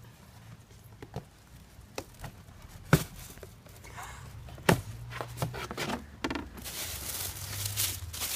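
Packing paper rustling and crinkling as a parcel is unpacked, with a few sharp knocks, the loudest about three seconds and about five seconds in. The rustling grows denser and louder near the end.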